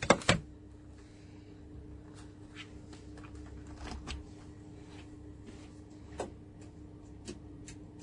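Two sharp clicks or knocks right at the start, then scattered light clicks and taps of objects being handled, over a faint steady hum.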